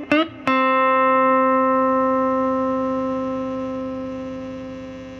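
Electric guitar through a Keeley Compressor Plus: a couple of quick picked notes, then one note struck about half a second in that rings on and fades only slowly, the compressor sustaining it.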